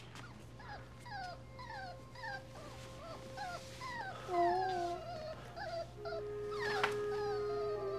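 Newborn puppy squeaking just after birth: a string of short, high cries that fall in pitch, about two a second.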